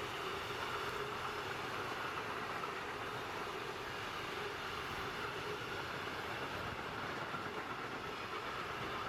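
A train rolling past on the line, its wheels running over the rails with a steady, even rolling noise.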